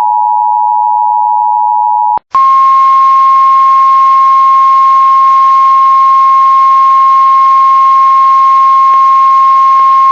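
Emergency Alert System two-tone attention signal, a steady dual-pitched tone that cuts off about two seconds in. After a click and a brief gap, the NOAA Weather Radio 1050 Hz warning alarm tone sounds, a single loud steady tone over radio hiss, the signal that a warning broadcast follows.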